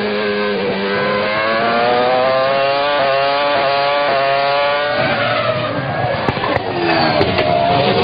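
McLaren-Mercedes 3.0-litre V10 Formula 1 engine, heard onboard at high revs. It climbs in pitch and drops back twice at upshifts, then falls for a couple of seconds as the car slows for a corner and climbs again near the end.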